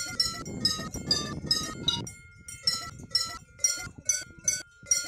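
Several cowbells of different pitches clank irregularly, three or four strikes a second, as the cows wearing them graze and move their heads. A low rustling noise lies under the bells for the first two seconds.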